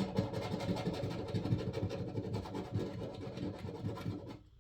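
Coin scratching the latex coating off a paper scratch-off lottery ticket in quick, continuous back-and-forth strokes. It stops shortly before the end.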